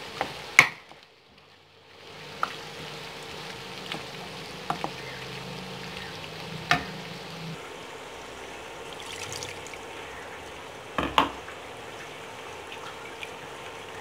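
Minced meat and potatoes sizzling in a wok while a spatula stirs, knocking sharply against the pan several times, loudest about half a second in. About halfway through, a little water is poured in and the frying sound changes.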